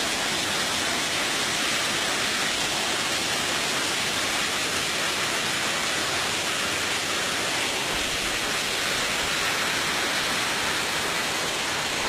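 Waterfall cascading down a steep rock face: a steady, even rush of falling water.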